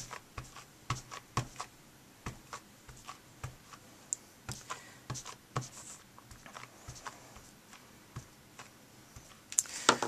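A plastic-cased ink pad tapped again and again onto rubber stamp scraps mounted on a large clear acrylic block, inking the stamp: a run of light, irregular taps, about two or three a second.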